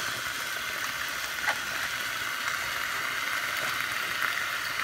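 Pork chops searing in hot oil in a skillet: a steady sizzle as the sides brown.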